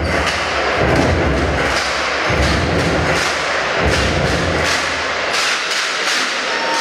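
Basketball crowd noise in a sports hall, with a low thud repeating about every one and a half seconds and scattered claps near the end.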